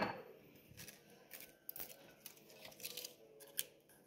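A sharp knock at the very start, then faint scattered clicks and taps as thin wooden reed diffuser sticks are handled and slid into the neck of a small diffuser bottle on a stone countertop.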